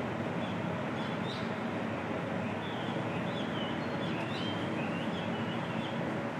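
Outdoor ambience: small birds chirping in short, high calls over a steady background noise, with the chirps coming most often in the middle.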